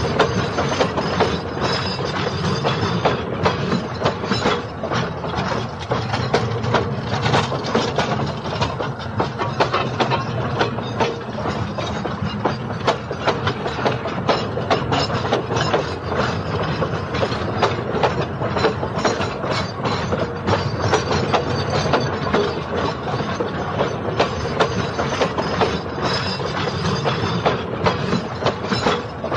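Railway train rolling along the track, its wheels clattering steadily over the rail joints in a dense run of clicks and knocks that does not let up.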